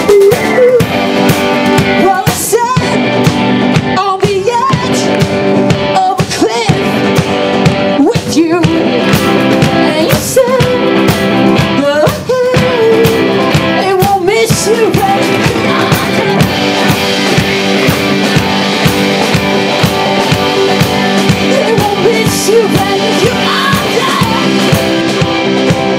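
Live rock band playing a song, with electric guitar, drum kit and a lead vocal. The singing comes in phrases over the first half or so, then the full band plays on.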